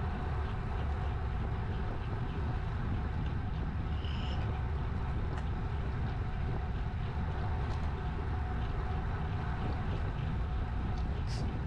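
Steady wind noise rushing over a GoPro action camera's microphone on a moving bicycle, over the rolling rumble of the tyres on asphalt.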